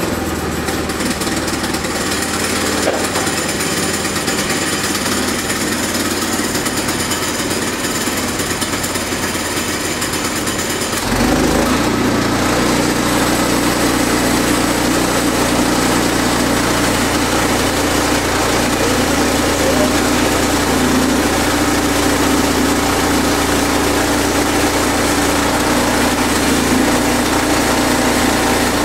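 Sawmill running steadily. About eleven seconds in the sound changes, becoming louder and deeper, and holds that way.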